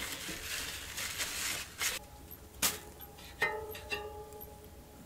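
Handling noise of bicycle wheel and hub parts, then two sharp metallic clicks less than a second apart. The second sets off a ringing of several tones that dies away over about a second and a half.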